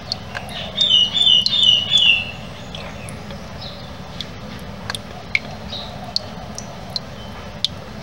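Water dripping from a garden hose into a plastic tub, each drop a short sharp tick at uneven intervals. About a second in, a bird chirps a quick run of high notes, the loudest sound here.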